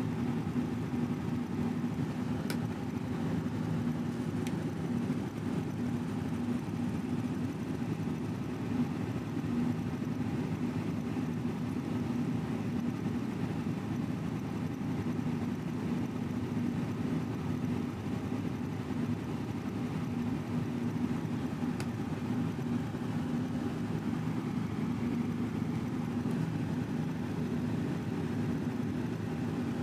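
Steady low mechanical rumble with a constant hum, unchanging throughout, with a few faint ticks.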